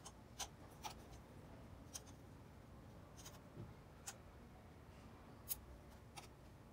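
Faint, irregular sharp clicks and ticks, about seven in all, from a soldering iron tip and solder wire working against a stainless-steel muffler while it is being soldered.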